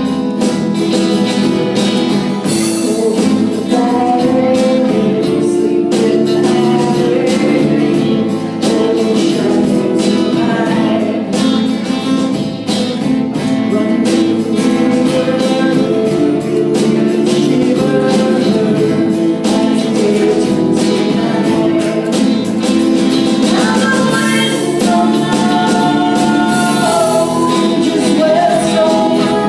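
Live band playing a song: singing over guitar and other instruments, with regular percussion strokes keeping the beat.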